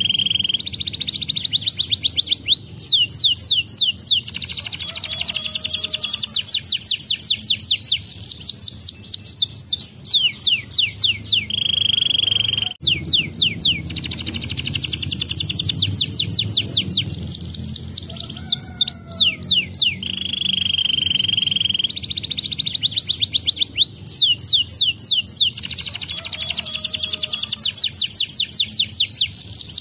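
Domestic canary singing a long song of fast, rapidly repeated trills, broken by a few held, steady whistled notes.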